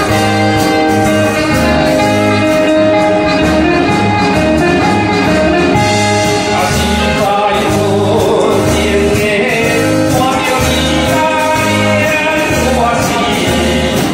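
A man singing into a microphone over band accompaniment with a steady beat; instrumental melody carries the first few seconds, and his voice comes in about six seconds in.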